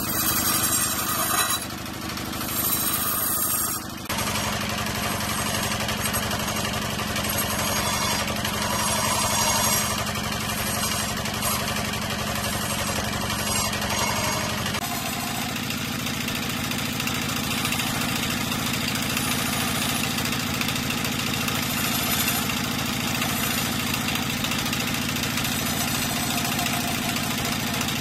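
Wood lathe running with a steady motor hum while a hand-held chisel cuts into the spinning wooden spindle, adding a rough scraping over the hum. The sound changes abruptly twice, about four seconds in and about halfway through.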